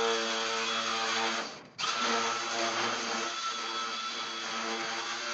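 Electric metal shear running as it cuts a steel roof panel, a steady motor whine; it stops briefly about a second and a half in and starts again.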